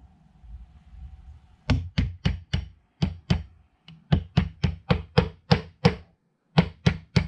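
Repeated sharp taps driving out the mainspring housing pin of a 1911 pistol: about three taps a second in short runs with brief pauses, starting after a second and a half of quiet handling.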